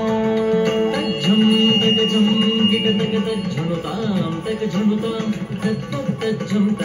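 Carnatic classical music accompanying a Bharatanatyam dance, with long held notes and a high note sustained for a couple of seconds about a second in.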